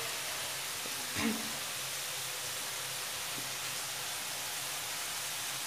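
Steady background hiss of food sizzling in frying oil, with a brief faint murmur of voice about a second in.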